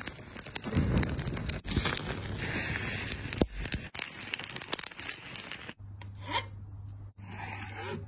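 Open flames crackling and hissing under a piece of cow tongue being seared over the fire. About six seconds in the sound cuts to a much quieter low steady hum with a couple of brief scrapes.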